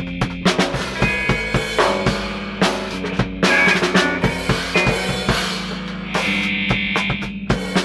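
Live instrumental jam: a drum kit played in a steady beat, with bass and guitar holding notes underneath.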